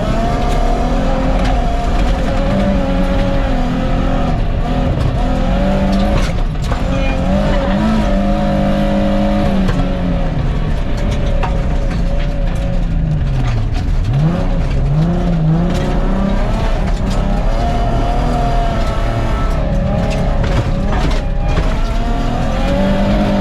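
Nissan 350Z drift car driven hard on a gravel rally stage: the engine revs climb and fall repeatedly through gears and corners, dropping sharply and picking back up about two-thirds of the way through, over a steady rush of tyres on gravel.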